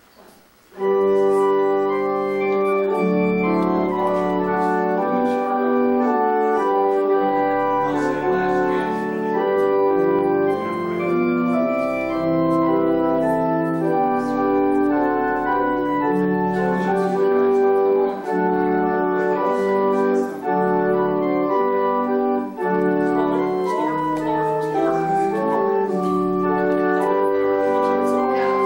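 Organ playing a wedding processional in slow, held chords, starting abruptly about a second in.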